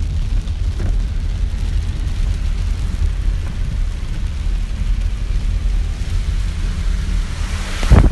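Inside a car driving in the rain: a steady low rumble of engine and tyres, with rain on the car. About eight seconds in, a sudden loud rush of wind on the microphone.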